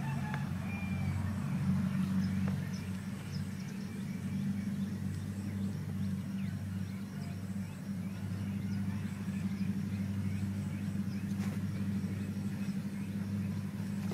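Steady low mechanical hum, like a running engine, with faint short chirps above it.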